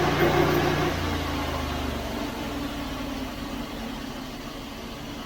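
Norwood portable band sawmill's gas engine running, then throttled down about a second in and settling to a lower, quieter idle.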